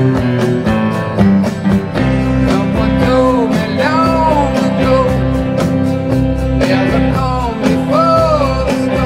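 Rock band recording with strummed guitars, bass and a steady drum beat, a male lead vocal singing phrases from about three seconds in, and an electric guitar playing along.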